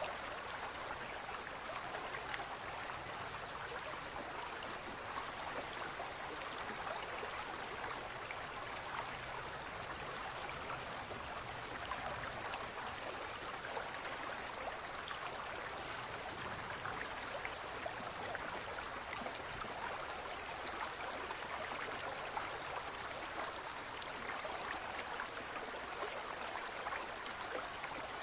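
Fish tank water trickling and bubbling steadily, a dense patter of small splashes and bursting bubbles.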